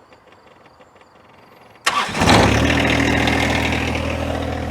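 John Deere 1025R compact tractor's three-cylinder diesel engine starting about two seconds in after a few faint ticks, catching at once and settling into a steady idle.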